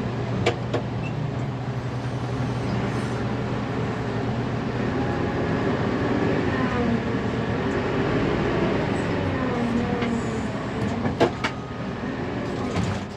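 Fermec TLK760 backhoe loader's diesel engine and hydraulics heard from inside the cab, working under load as the loader bucket picks up dirt; the engine note rises and falls in the middle. A few sharp knocks about half a second in and twice near the end.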